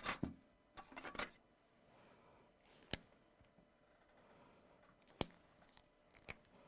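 Marker strokes and taps while drawing and writing by hand: two short scratchy bursts in the first second or so, then three sharp isolated clicks spread through the rest.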